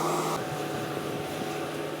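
Skid steer engine running steadily, its tone shifting abruptly about a third of a second in.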